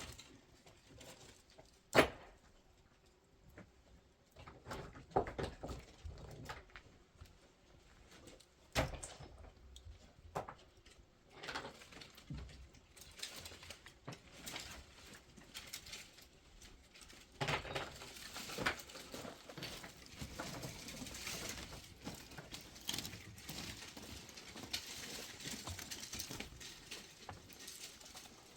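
Scattered knocks and taps from hands at work, with one sharp knock about two seconds in; from a little past halfway a steady hiss with small ticks sets in under them.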